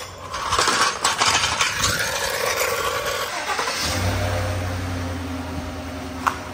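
A loud, noisy stretch, then about four seconds in a 2019 Chevrolet Silverado 1500's engine idling steadily. A single sharp click comes near the end.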